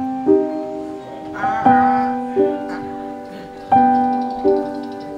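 Background music: a gentle piano melody, single notes and chords struck every half second to a second and left to ring out.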